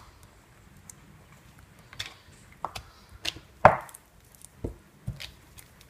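Plastic paint jars being handled and set down on a craft mat: a few scattered knocks and clicks, the loudest a little past halfway through.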